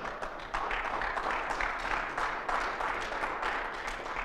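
Congregation applauding, a dense patter of many hands clapping that tapers off near the end.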